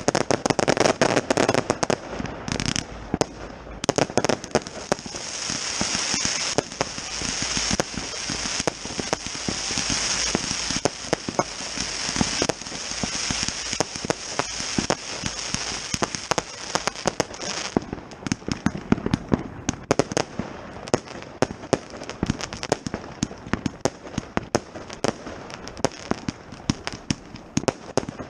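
Consumer firework batteries firing: a dense run of sharp cracks and bangs, with a steady hiss that starts about four seconds in and stops suddenly a little past halfway.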